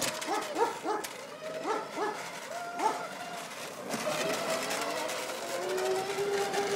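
A string of short, sharply rising yelps over the first three seconds. From about four seconds in, the electric motor of a 1500-watt electric quad whines steadily, its pitch slowly rising as the quad picks up speed.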